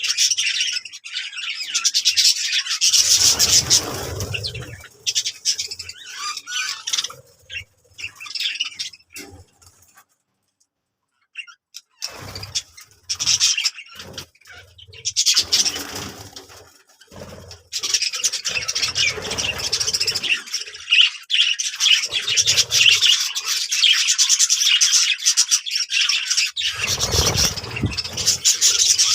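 A group of small birds chirping and twittering almost without pause, with low rubbing and bumping sounds now and then. The chirping stops for about two seconds around ten seconds in.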